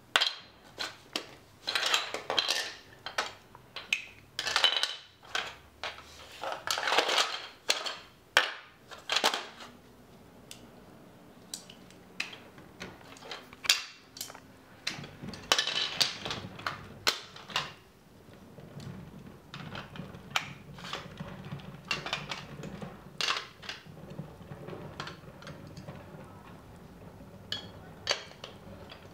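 Plastic LEGO DUPLO bricks clattering and clicking on a wooden floor as they are picked up, knocked together and set down, in irregular bursts of knocks and rattles.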